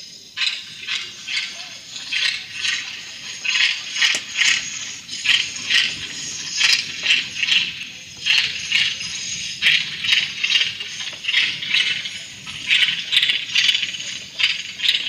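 Rattles shaken in a steady rhythm, about two shakes a second, each a dry hissing rattle with sharp clicks in between.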